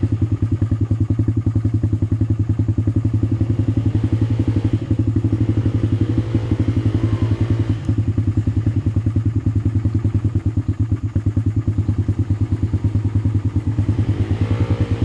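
ATV engine running steadily close by, with an even, rapid chug.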